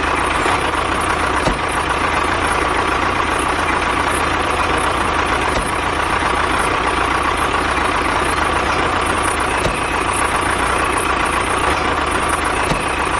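Tractor engine idling steadily, with a constant hum.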